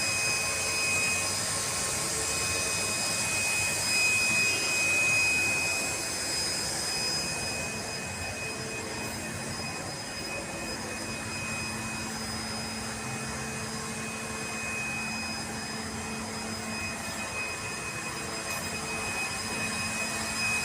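A motor running steadily with a high whine and a hissing rush, the hiss easing a little partway through.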